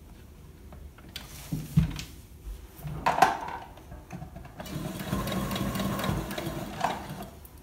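Electric sewing machine stitching a seam through two layers of cotton fabric, running steadily for a couple of seconds in the second half before stopping. A few knocks and clicks come before it.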